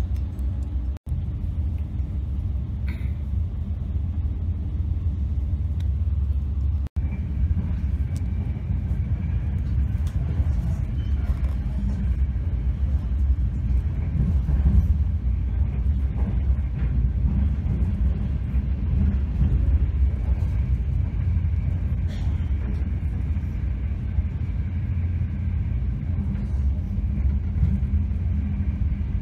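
Steady low rumble of a vehicle in motion, with a few faint clicks and knocks; the sound cuts out for an instant twice, about a second in and again near seven seconds.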